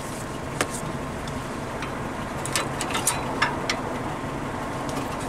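Light metallic clicks of brake pads and their hardware clips being worked in a front caliper bracket, the pads binding a little. The clicks are scattered and come mostly between about two and four seconds in, over a steady low background hum.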